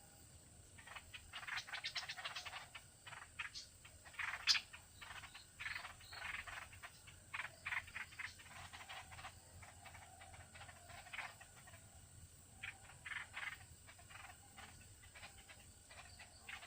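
Animal calls in irregular bursts of short, rapid chattering notes, clustered with pauses between them.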